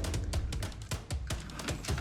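Background music with a busy drum beat and a steady bass line.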